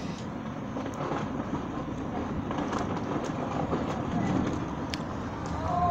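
Heavy hail shower: a steady hiss of hailstones coming down on the street and parked cars, with a few sharp ticks of stones striking nearby. A short wavering whine comes in near the end.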